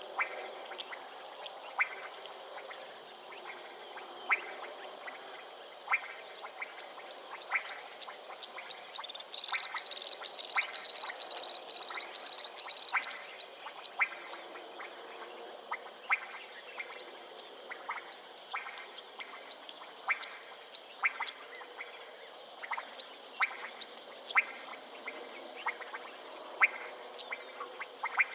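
A chorus of frogs calling from a marshy waterhole: sharp, short clicking calls, one or two a second, over a steady high-pitched background chorus, with a brief run of quick higher chirps about ten seconds in.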